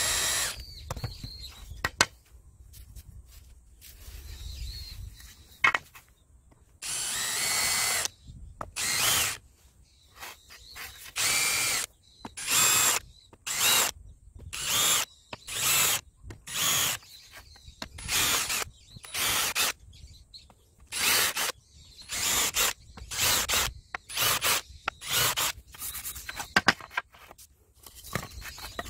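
Cordless drill with a woodworking countersink bit cutting countersinks into fibre-cement siding board, run in a long series of short bursts, most under a second and about one a second, each rising in pitch as the motor spins up.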